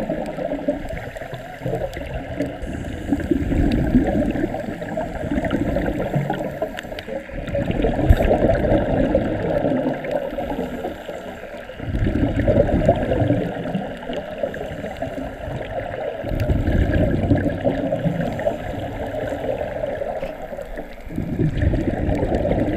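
Scuba regulator exhaust bubbling and gurgling underwater as divers breathe out. It comes in surges about every four to five seconds.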